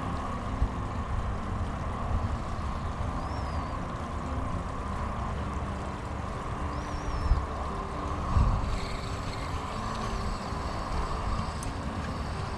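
Steady low outdoor rumble, with a small bird giving a short rising-and-falling chirp about every three seconds and a couple of soft knocks about two-thirds of the way through.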